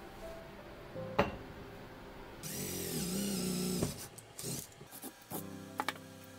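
Handheld power drill boring into a wooden carving held in a vise: the motor whines for about a second and a half, its pitch wavering as the bit bites, with a few small knocks of handling before and after.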